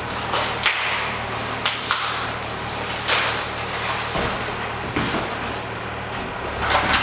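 Packaging being handled and opened: rustling with a handful of sharp clicks and knocks at uneven intervals.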